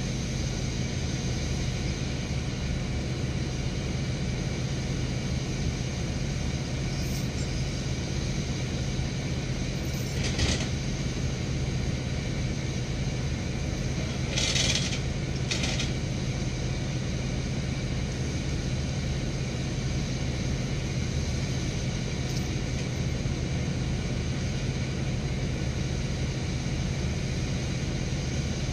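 A 1996 bucket truck's engine running steadily, as it does while driving the boom hydraulics, with brief hissing noises about ten seconds in and again around fifteen seconds in.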